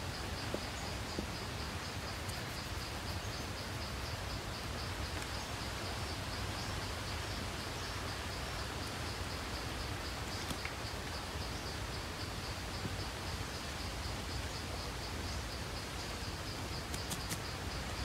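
An insect trilling in an even, steady pulse, high-pitched, over a low outdoor rumble, with a couple of faint clicks near the middle and near the end.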